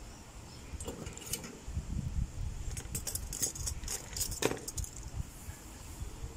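Light metallic clinking and jangling of small metal objects being handled, in a few clusters of short clicks, the busiest about three to four and a half seconds in.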